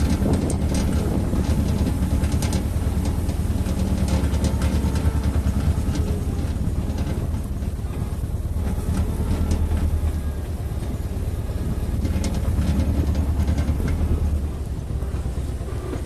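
A tractor's engine running steadily as it tows a loaded wooden trailer over a rutted dirt track, with the trailer knocking and rattling over the bumps. It gets a little quieter near the end.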